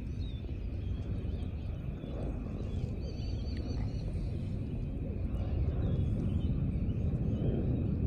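Steady low outdoor rumble, growing somewhat louder after about five seconds, with faint, short bird chirps now and then.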